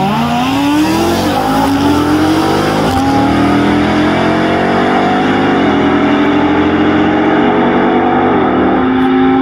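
A Lamborghini Huracan Evo's V10 and a modified Ram TRX's supercharged V8 at full throttle in a drag race, accelerating away down the strip. The engine note climbs steadily and drops back at each of several upshifts, about every two to three seconds.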